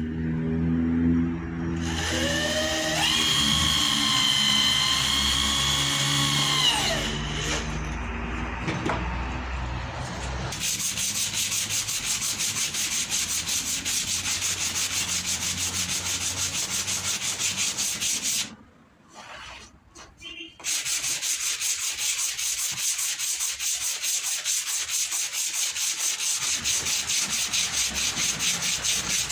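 Cordless drill boring a hole in a wooden board: its motor whine rises to speed, holds for several seconds, then falls away. After that comes sandpaper rubbed over the wood in quick, even strokes, with a brief pause about two-thirds of the way through.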